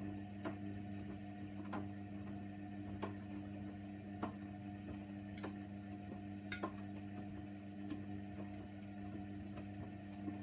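Hoover Nextra 6 washing machine running during a prewash, a steady hum with a sharp click repeating a little more than once a second.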